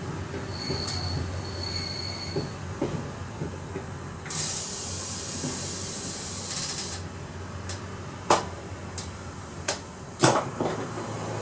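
Cab of a 1980 Fiat Ferroviaria Y1 diesel railcar under way: a steady low drone from the running railcar, two short high-pitched tones about a second in, and a loud hiss lasting about three seconds from a little past four seconds in. Several sharp clicks follow in the last few seconds.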